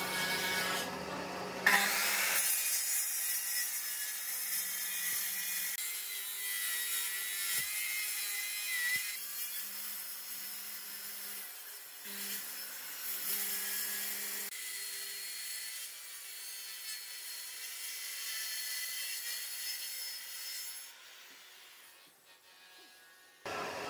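Makita handheld circular saw running and cutting through a thick wooden slab: a steady motor whine with the blade rasping through the wood. It starts abruptly about two seconds in and falls away near the end.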